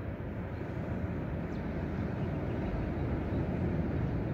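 Steady low rumble of ocean surf washing onto a sandy beach, swelling slightly near the end.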